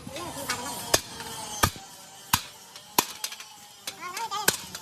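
Hammer striking metal: five sharp blows, the first four about two-thirds of a second apart, then a pause before the last.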